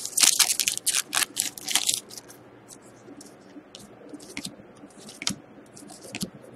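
A hockey card pack's wrapper crackling loudly as it is pulled open for about the first two seconds, followed by softer scattered clicks and rustles of the cards being slid out and flipped through.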